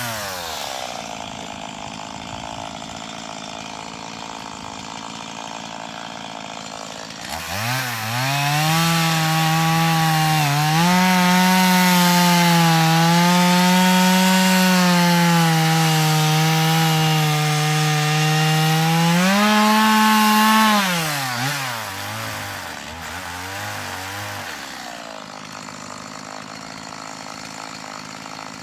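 Two-stroke chainsaw idling, then revved up at about seven seconds and held at high speed while it cuts through wood, its pitch wavering under the load. At about twenty seconds the revs rise briefly, then the saw drops back to idle.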